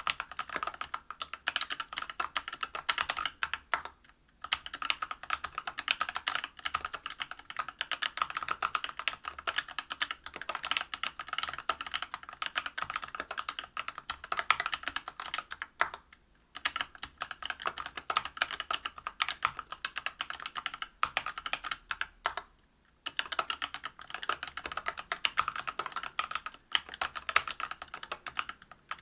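Fast continuous typing on a Whale 75 mechanical keyboard with stock, unlubricated Everglide BeesWax 67g linear switches in a brass plate, under Geekark PBT keycaps. It is a dense run of keystroke clacks, broken by three brief pauses.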